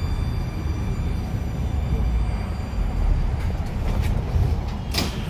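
Moscow metro 81-775/776/777 (Moskva-2020) train standing at a station: a steady low rumble and hum of the train's equipment, with a few thin, steady high-pitched tones that fade about three seconds in. A brief sharp click comes near the end.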